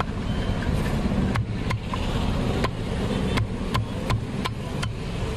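Large knife chopping and shaving raw jackfruit against a wooden block: about ten sharp chops at an uneven pace, over a steady low background rumble.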